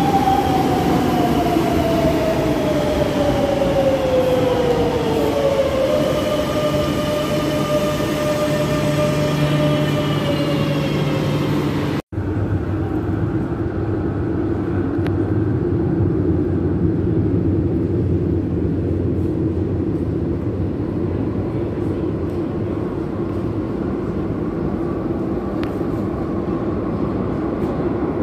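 Madrid Metro train's electric traction motors whining as the train slows: a falling whine that levels off into steady tones. After a sudden cut about twelve seconds in, a steady low rumble of a metro train follows.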